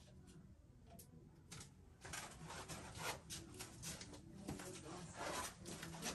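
A few light clicks, then, from about two seconds in, a run of rustling and light knocks from paint cups being handled and someone moving about on plastic tarp, over a faint steady low hum.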